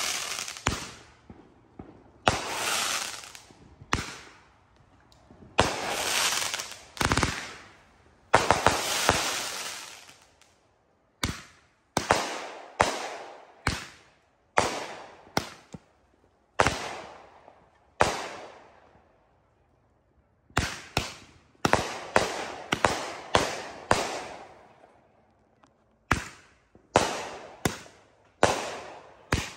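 Consumer aerial fireworks going off in a long series of sharp bangs, each trailing off over a second or two. The first few bursts have longer, denser tails. From about eleven seconds in, single bangs come more quickly, roughly one to two a second.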